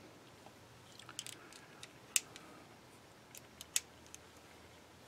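Small metal clicks and taps of a screwdriver and its extension shaft being handled and fitted together, with two sharper clicks about two seconds in and again near four seconds.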